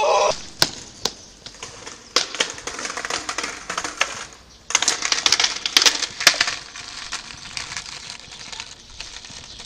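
A skateboard clattering and rolling over paving tiles after a bail, a run of sharp clicks and rattles that comes in two spells, after a short shout at the very start.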